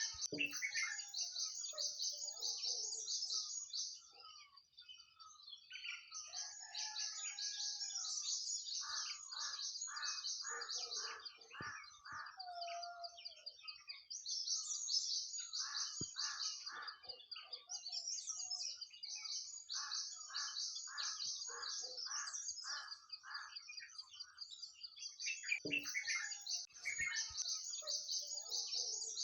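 Nightingale singing: phrases of fast repeated notes, several a second, with short pauses between phrases. Dense high chirping runs behind the song throughout.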